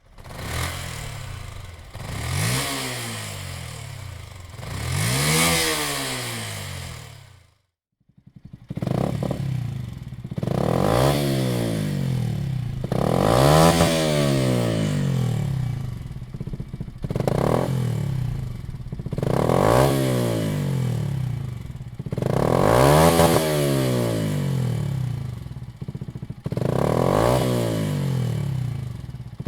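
Yamaha WR 125 X's single-cylinder four-stroke engine being blipped and revved at standstill, its pitch climbing and falling with each blip. Two revs, then a sudden cut to silence about eight seconds in, after which the engine is revved again six or so more times.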